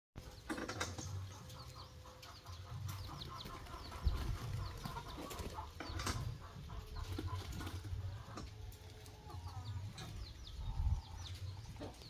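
Many birds calling at once: short high chirps and repeated cooing notes from caged birds, with chickens clucking, over a low rumble.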